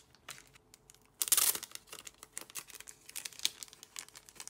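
Packaging of a vinyl record being torn open and crinkled: a loud tearing rip about a second in, then a run of irregular crackles as the wrapping is handled.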